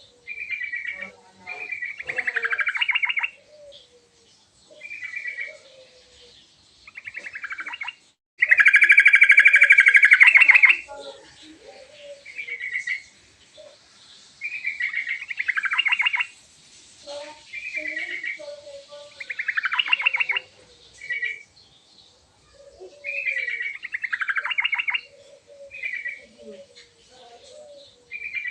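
Yellow-vented bulbul singing, phrase after phrase of short bubbling song about a second long with brief pauses between, and one longer, louder stretch of song about a third of the way in. Fainter low calls sound underneath.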